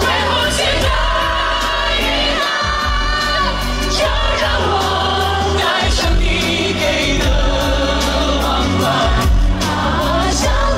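Male singer singing live into a microphone over an amplified backing track with a heavy bass line, his voice bending and gliding between held notes.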